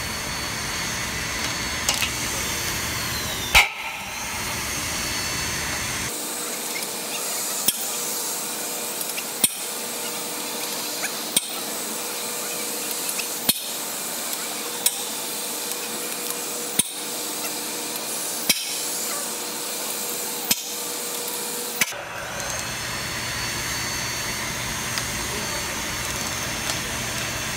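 Hydraulic torque wrenches breaking out flange nuts: a steady pump-and-tool noise with sharp clicks about every two seconds through the middle stretch as the wrench strokes and ratchets.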